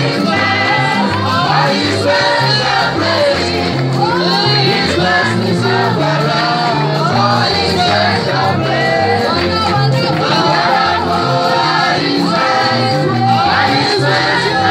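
A group of women singing a gospel song together over instrumental accompaniment with a stepping bass line.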